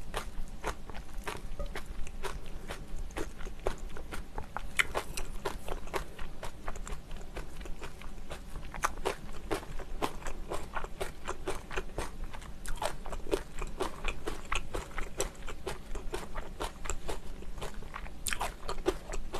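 Close-miked chewing and mouth sounds of a person eating spicy curry and rice, a dense, irregular run of small wet clicks.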